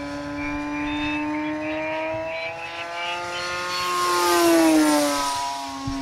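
Electric motor and propeller of an Explorer Big Flap F5J electric glider running under power: a steady pitched buzz. Its pitch rises and it swells with a rush of air about four or five seconds in, then falls away in pitch near the end.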